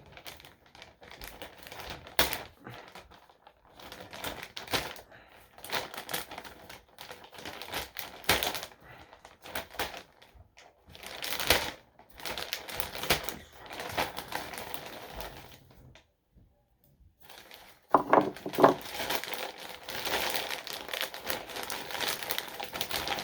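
Mystery-box mailer package being handled and opened, crinkling and rustling in irregular bursts. It goes quiet for about a second and a half late on, then the crinkling comes back louder.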